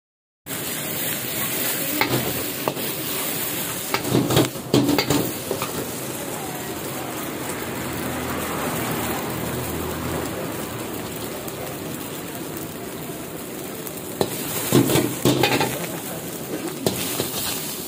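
Egg frying and sizzling in hot oil in a large wok, stirred with a steel ladle. Clusters of ladle clanks and scrapes against the wok come about four seconds in and again near the end.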